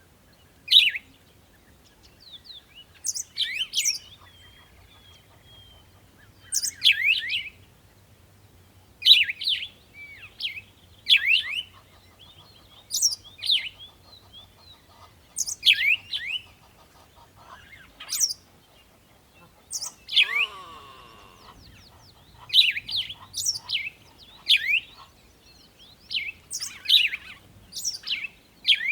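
A bird chirping: short, sharp, high calls repeated every second or two, each a quick falling sweep, with a lower rattly call about two-thirds of the way through.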